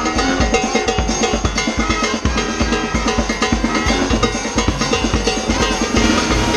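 A New Orleans-style street brass band playing: bass drum with a mounted cymbal and snare drum keeping a steady, driving beat under sousaphone and trombone.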